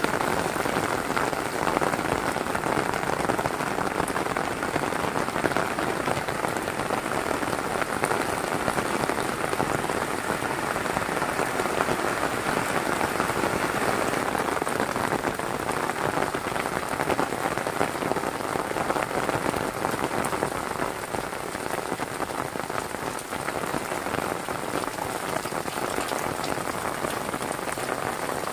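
Heavy rain falling steadily, a dense even hiss of countless drops. It eases a little about three-quarters of the way through.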